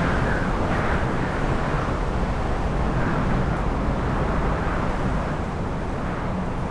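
Heavy storm wind blowing through a city: a steady deep rumble with gusts that swell and fade every second or so, easing a little in the second half.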